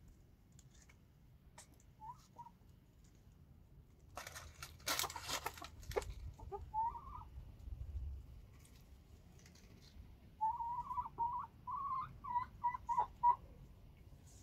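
Chickens clucking: a few short clucks, then a quick run of about a dozen clucks near the end. About four seconds in there is a brief burst of rustling.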